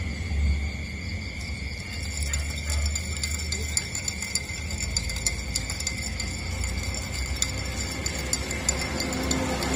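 Steady high-pitched chirring of insects, with many faint short clicks and a low rumble underneath.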